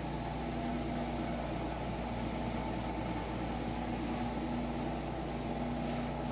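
Room air conditioner running, a steady hum and airy hiss with a faint tone that fades in and out.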